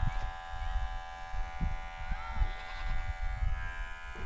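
Electric hair clippers running with a steady buzz while cutting hair, with irregular low thuds underneath.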